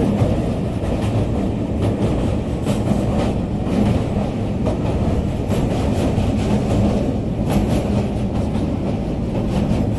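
Train running, heard from on board: a steady low rumble of wheels on the track with irregular clacks and knocks.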